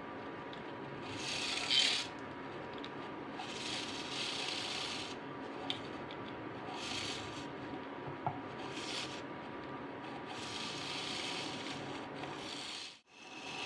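Battery-powered handheld coffee beater whirring as its whisk beats instant coffee, sugar and a little water into a thick paste in a ceramic mug. Over the steady whir come repeated rasping scrapes where the whisk rubs against the side of the mug. The sound stops for a moment near the end. The beater is a cheap, weak one that its owner finds sluggish and hard work.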